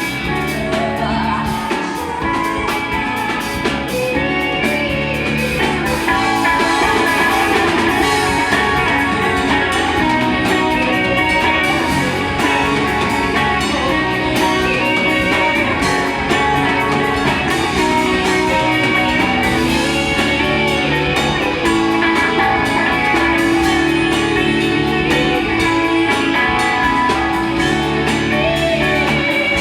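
A rock band playing a song live, electric guitar to the fore, with drums and singing.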